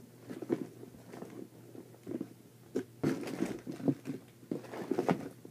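Rummaging through a collection of small toys and squishies: irregular rustling, shuffling and small knocks as items are moved aside in a search.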